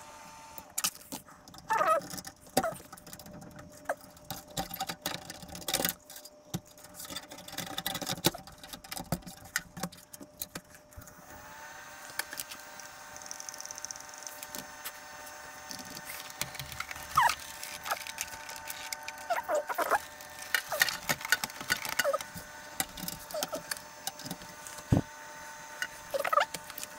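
Scattered clicks, knocks and light metallic rattles of hands handling a desktop PC and its parts. About twelve seconds in, a faint steady whine with several pitches starts up underneath.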